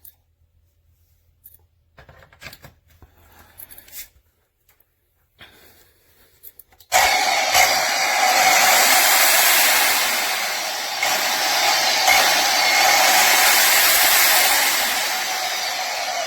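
Electric concrete saw with a 1800 W motor, switched on about seven seconds in after a few faint clicks, then running steadily at full speed.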